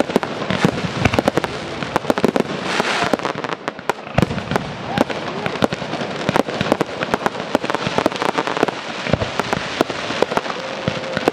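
Fireworks display: many sharp pops and crackles in quick succession from bursting shells, crackling stars and comets, with louder bangs now and then.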